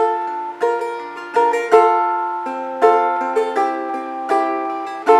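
Balalaika in traditional C-E-G tuning, chords struck with one finger in a steady rhythm, about one stroke every 0.7 s, each chord ringing and fading. About halfway through, a lower bass note on the third string comes in under the chords.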